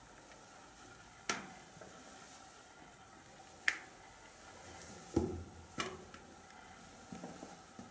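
Four sharp clicks or knocks at uneven gaps, then a few fainter ones near the end, each with a short echo off concrete walls, over a low hiss.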